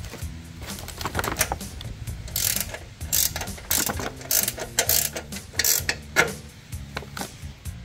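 Ratcheting combination wrench tightening a nylon-insert lock nut onto a bolt: repeated short runs of metallic ratchet clicks as the wrench is swung back and forth, about one stroke every half second to second.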